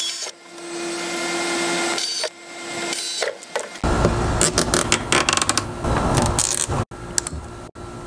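Cordless drill running as it bores small holes through the plastic lid of a cooler, in two short runs in the first half. Then hands working nylon zip ties through the holes, with quick clicks as they are pulled tight.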